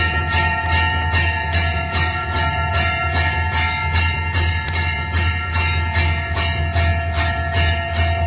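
Temple bell rung without pause, its clapper striking about three times a second, so the ringing of each strike runs into the next. A steady low hum sounds underneath.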